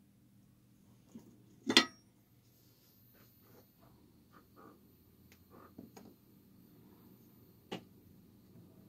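Sharp clicks and knocks of small objects handled on a work surface: one loud knock about two seconds in, a few light taps, and another knock near the end, over a steady low electrical hum. A faint high whine comes in after the first knock.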